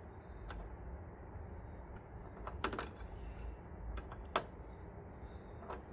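About half a dozen faint, scattered clicks and taps from a multimeter and its test probes being handled against a transformer's terminals during a voltage check.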